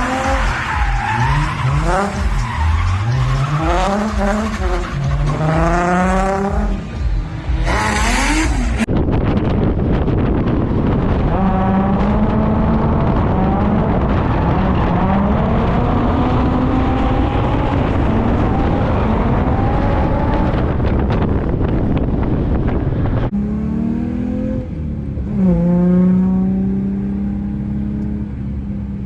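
Drift car engine revving hard, its pitch rising and falling again and again, over a steady hiss of tyre noise. The sound changes abruptly about nine seconds in and again near the end, as one run gives way to another.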